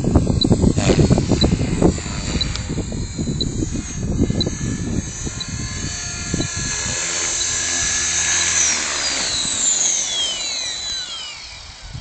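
Align T-Rex 450 electric RC helicopter's motor and rotor whining, with gusty wind buffeting the microphone in the first half. From a little past eight seconds in, the whine slides steadily down in pitch and fades as the rotor spins down on the ground after landing.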